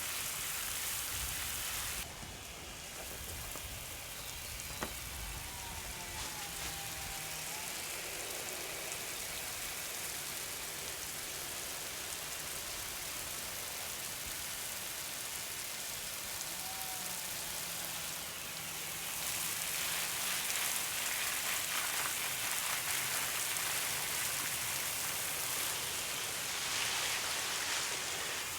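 Garden hose spraying water onto plants and ground, a steady hiss and patter of falling water. It gets louder and brighter about two-thirds of the way through as the spray shifts, and there is a single sharp click early in the stretch.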